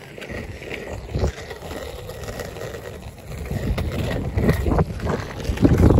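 Skateboard wheels rolling over rough, cracked asphalt: a steady rumble with scattered knocks, growing louder in the second half.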